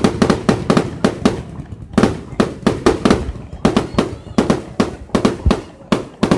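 Rapid barrage of aerial firework bangs, several a second, with a short lull about one and a half seconds in; the firing stops near the end.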